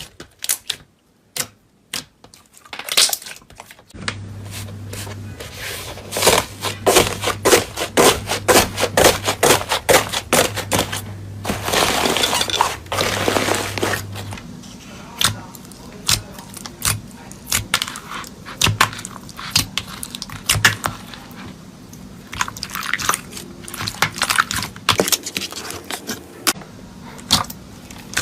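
Crunchy slime being squeezed and pressed, giving off rapid, irregular crackling pops and clicks, sparse at first and busiest in the first half, with a low steady hum underneath there.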